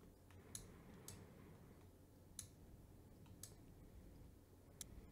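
Near silence broken by about five faint, irregularly spaced computer mouse clicks.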